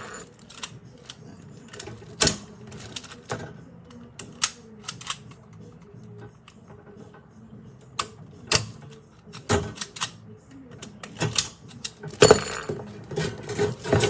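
Metal can-rack parts clicking and clanking as they are handled and set down: scattered sharp knocks, with a quick flurry of clatter near the end.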